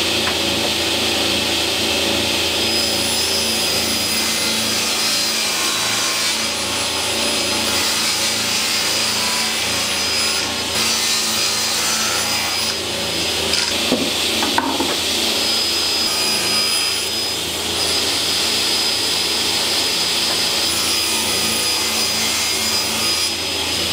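Table saw running and ripping a thin 9 mm board, a continuous steady cutting noise, with a couple of short knocks about halfway through.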